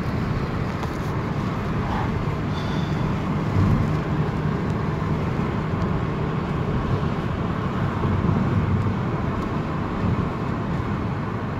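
Steady road noise inside a moving car's cabin: engine and tyre rumble at cruising speed.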